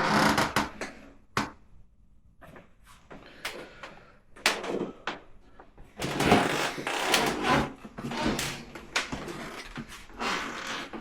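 Irregular knocks, clicks and creaks of someone moving about an old house: footsteps on a creaky wooden floor, busier and louder for a couple of seconds past the middle.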